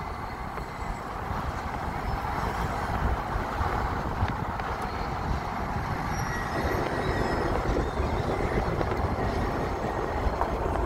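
Steady rumble of tyres on the road and wind from inside a moving car with its window open, filling out about six and a half seconds in.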